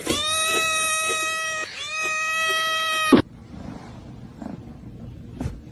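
A cat giving two long, drawn-out meows held at a steady high pitch, each lasting about a second and a half, the second sliding up briefly at its start. Afterwards only faint background noise with a few soft clicks.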